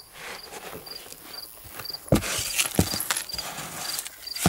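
Glock 17 pistol being pushed by hand into a plastic tub of sand and dirt: gritty scraping and handling, with a few dull knocks against the tub, one about two seconds in, one near three and one at the end. Crickets chirp steadily, about twice a second.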